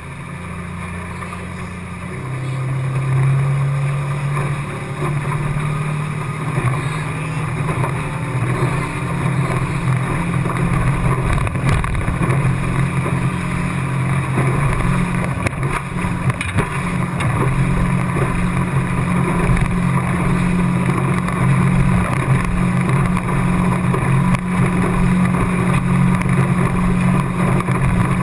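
A 50 hp outboard motor pushing a boat along at speed: a steady engine drone with wind and water rushing past. It grows louder about three seconds in, then runs steady.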